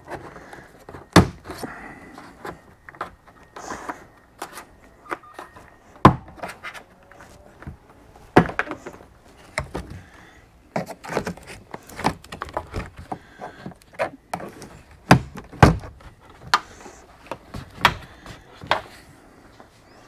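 Hands and a plastic pry tool working on an SUV's plastic cargo-area trim: irregular clicks and knocks, with a few louder sharp knocks.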